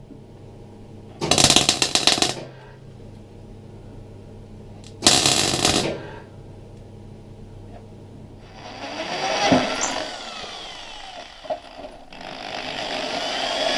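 Two short bursts of welding crackle, about a second each and some four seconds apart, as nuts are welded onto steel body panel bolts. About eight seconds in a rotary power tool starts working the metal, with a short break about twelve seconds in.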